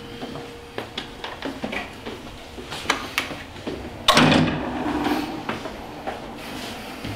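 Irregular light footsteps and small knocks, then a door opening with a sudden loud clatter about four seconds in that rumbles on for a second or so.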